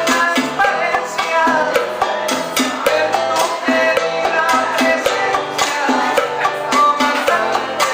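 Live band playing old-school Cuban music, with a steady percussion beat under melodic instruments.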